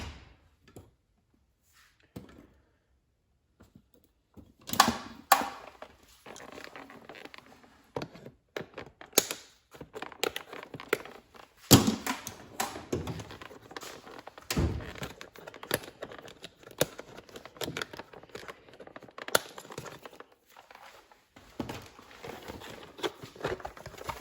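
Handling noise from freeing and opening a zip-tied plastic drill-and-driver bit case: irregular knocks, clicks and plastic clatter with crinkling packaging. It starts after about four seconds of near silence, with a few sharper knocks standing out.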